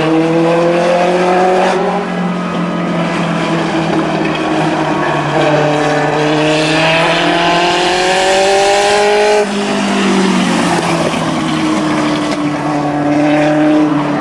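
A Legends race car's motorcycle engine at speed, its pitch climbing as it accelerates, then dropping sharply about two seconds in and again about two-thirds of the way through as the driver lifts, and holding steady near the end.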